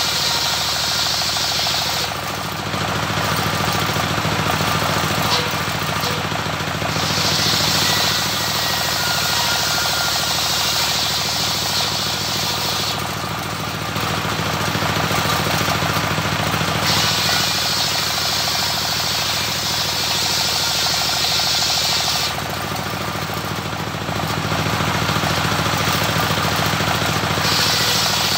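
Homemade circular sawmill driven by a stationary engine, ripping waru (sea hibiscus) logs into rafters. The engine runs steadily while the high hiss of the blade cutting through the wood comes and goes, dropping away about 2, 13 and 22 seconds in between passes and returning a few seconds later.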